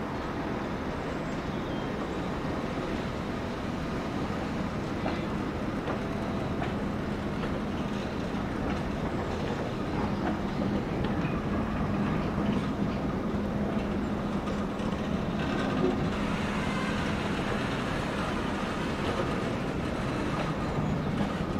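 A rake of railway passenger coaches rolls slowly past, with short clicks from the wheels over the rail joints. Under it runs the steady low hum of the diesel shunter moving them, growing slightly louder through the passage.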